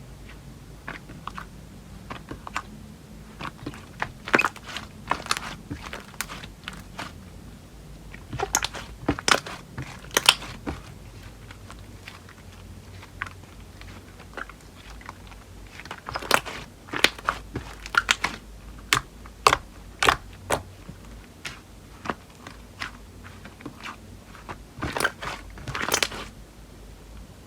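Slime being squeezed and pressed by hand, giving irregular sharp clicks and pops in quick clusters, with a sparser stretch in the middle.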